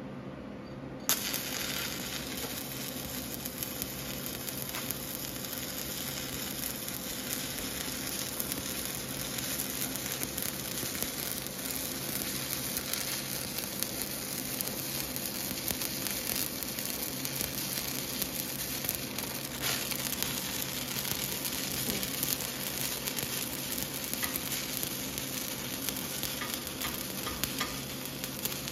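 Stick (shielded metal arc) welding arc burning on a tube, two welders buddy-welding it with two stingers fed from one lead: a steady frying crackle that strikes up about a second in.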